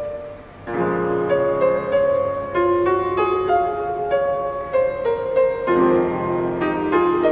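Background piano music, a slow melody over sustained chords. Fuller, lower chords come in about a second in and again near the end.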